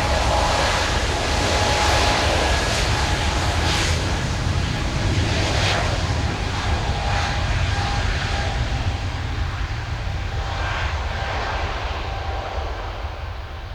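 Jet airliner's engines at takeoff thrust: a steady, loud rumble with a faint whine in it, fading near the end.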